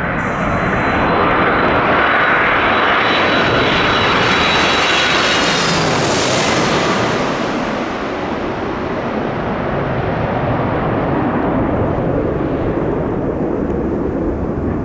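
Jet airliner on landing approach passing low directly overhead. The engine roar and high whine build to a peak about six seconds in, then give way to a fading rumble as it moves off.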